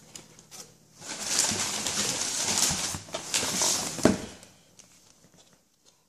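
Loud rustling and rubbing handling noise with a few knocks, starting about a second in and lasting about three and a half seconds.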